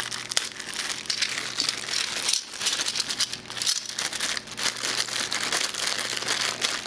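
Clear plastic packaging bags crinkling as they are handled and pulled from a cardboard box: a continuous crackling with two brief pauses about two and a half and almost four seconds in.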